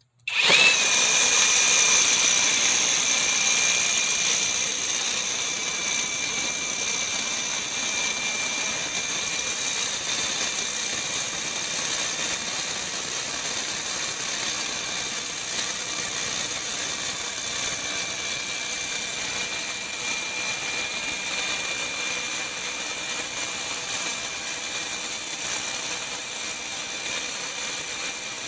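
Bauer brushless rotary hammer starting up and running continuously, with a steady high-pitched whine over its motor noise, loudest in the first few seconds.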